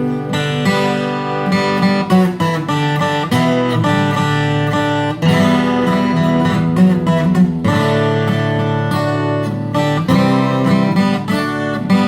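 YAMAKI YW-40 12-string acoustic guitar played solo, strummed and picked chords of a melody, with the bright doubled-string shimmer of a twelve-string.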